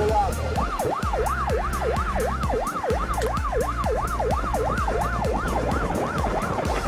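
Police siren in a fast warble, its pitch sweeping up and down about three times a second, over the steady low rumble of a car moving at speed.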